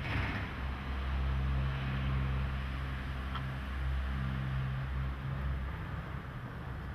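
A steady low engine-like drone with an even hiss over it, swelling and easing slightly, with a brief rush of noise right at the start.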